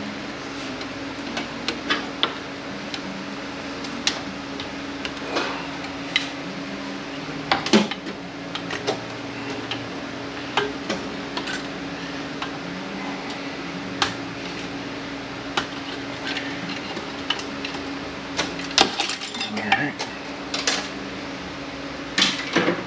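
Steel clutch-drum parts and hand tools of an automatic transmission clinking and tapping as a snap ring is worked off and the return spring and piston are freed, with louder clanks about eight seconds in and near the end. A steady low hum runs underneath.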